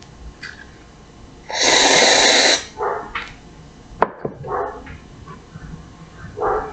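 A loud rushing hiss that lasts about a second, followed by a dog giving several short barks, with a sharp click in between.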